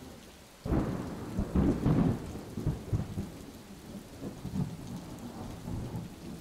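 Thunder rumbling: it breaks in suddenly under a second in and rolls on, slowly fading, over steady falling rain.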